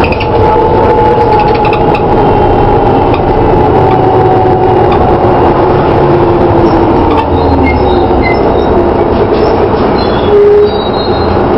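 DAF DB250LF double-decker bus heard from inside the lower deck while under way: engine and Voith three-speed automatic gearbox running, with a whine that slowly drops in pitch. A brief louder tone sounds near the end.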